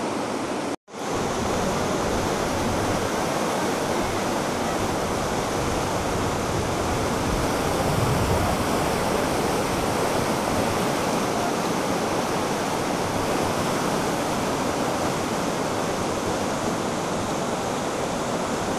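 Fast mountain river with a strong current, rushing steadily over boulders in white-water rapids. The sound cuts out for an instant about a second in.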